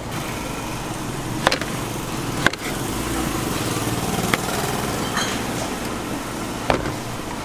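A knife knocking on a cutting board four times as fruit is chopped, over a steady mechanical running noise.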